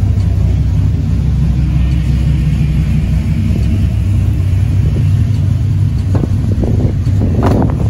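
Vehicle engine idling with a steady low rumble, with a few light knocks and handling noises near the end.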